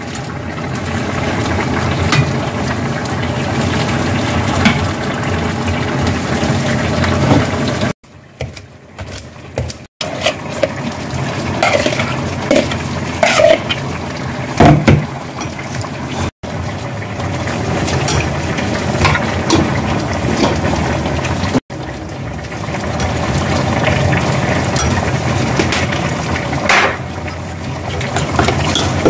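Kitchen prep sounds: tongs and a spoon clinking and scraping against bowls as kimchi is moved onto acorn jelly in a stainless steel bowl and a seasoning sauce is stirred in a small ceramic bowl. The clinks are sharpest in the middle and sit over a steady background hum.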